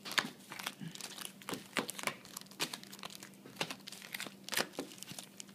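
Plastic-foil wrappers of sealed trading-card packs crinkling as they are handled, with light taps as the packs are set down on a wooden table, making irregular sharp crackles.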